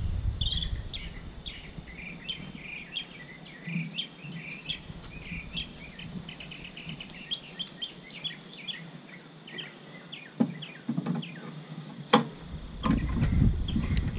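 Small birds chirping and twittering throughout. Near the end come a couple of sharp knocks and some low handling noise as the long-tail propeller shaft is handled and fitted back into the motor.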